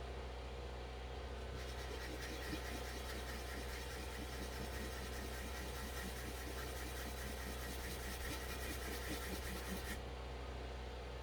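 220-grit sandpaper rubbed by hand on wood, rounding and tapering the edge; scratchy strokes start about one and a half seconds in and stop near the end, over a steady low hum.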